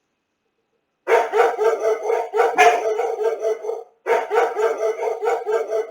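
Recorded dog-barking sound effect: a dog barking in quick, unbroken runs, starting about a second in, with a brief pause near the four-second mark.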